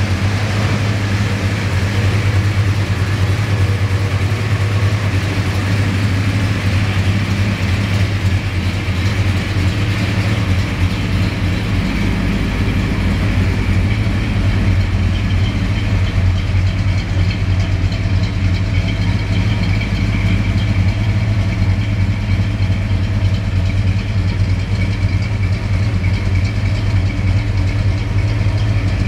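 Oldsmobile 455 big-block V8, freshly rebuilt, idling steadily. Its deep rumble gets heavier about a third of the way in.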